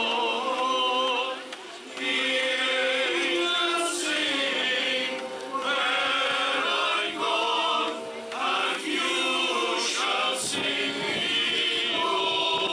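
Male voice choir singing in slow, sustained phrases, with short breaks for breath between them.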